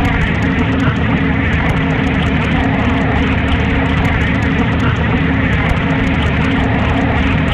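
Steady, dense noise drone with a low hum beneath and fine crackling ticks above, unchanging throughout.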